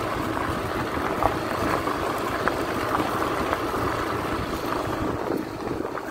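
Motor scooter running along a dirt road, heard from the pillion seat: a steady engine hum mixed with wind rushing over the microphone.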